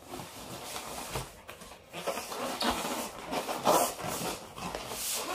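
Cardboard shipping box handled and opened by hand: flaps and cardboard rubbing, scraping and rustling in uneven bursts, loudest a little past the middle.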